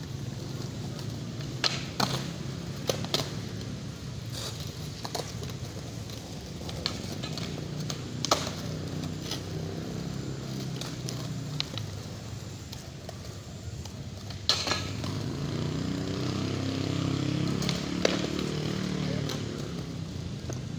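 Skateboard wheels rolling over concrete, a steady low rumble, with several sharp clacks of boards striking the ground scattered through it.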